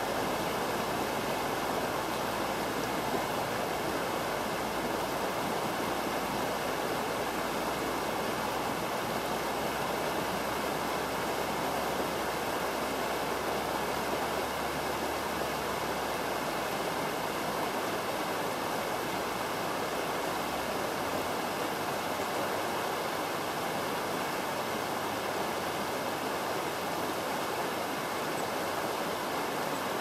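Shallow river rushing steadily over its rocky bed, an even, unbroken wash of water. A faint low rumble underneath fades out about halfway through.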